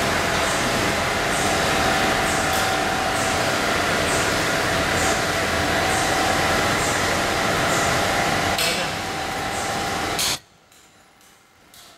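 Automatic fish-type mask making machine running: a steady mechanical din with a faint held tone and a regular short hissing tick about once a second. It cuts off abruptly about ten seconds in.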